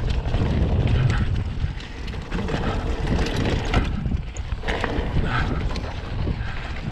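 2020 Aldi/Polygon Premium hardtail mountain bike descending a dirt trail: continuous wind buffeting on the microphone over tyre roll, with scattered clicks and rattles from the bike over bumps and roots.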